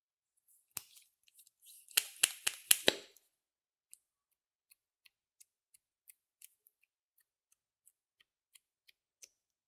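Sharp clicks of small objects being handled: one click, then a quick run of five loud sharp clicks about two seconds in, followed by faint scattered ticks.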